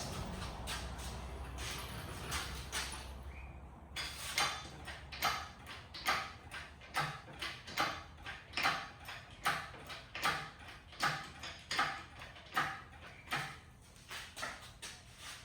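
Rhythmic knocking: sharp knocks starting about four seconds in, a stronger one a bit under once a second with lighter ones between, over a low steady hum.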